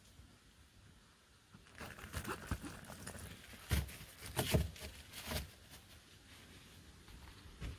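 Thin plastic water bottle crinkling and crackling as it is squeezed to squirt soapy water onto an airbed's fill valve, a bubble test for an air leak. The crackles start about two seconds in and come in a quick irregular run, loudest near the middle.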